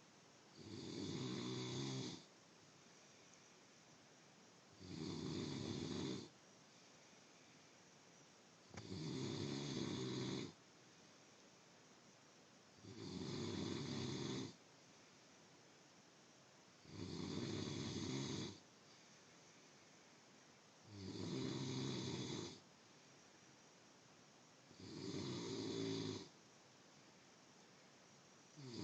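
A sleeping person snoring in a slow, regular rhythm: seven long rattling snores, each lasting about one and a half to two seconds, coming about every four seconds.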